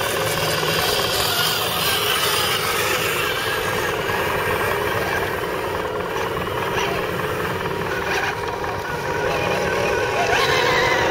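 Electric motors and gearboxes of radio-controlled scale crawler trucks whining steadily as they crawl over loose rock.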